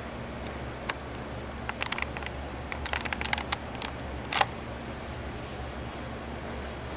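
A run of short sharp clicks and taps from handling the video camera, bunched over the first four and a half seconds with the loudest about four seconds in, over steady low outdoor background noise.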